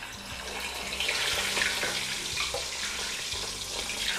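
Already-cooked lamb pieces sizzling in hot oil in a frying pan, the hiss of the frying growing louder about a second in.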